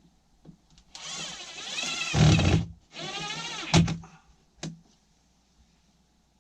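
A small power tool's electric motor runs in two bursts, the first about a second and a half long and the second about a second, its pitch rising and falling. Two sharp knocks follow.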